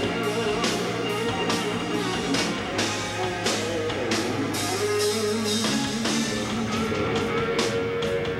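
Live rock band playing: electric guitar over a drum kit keeping a steady beat of about two hits a second.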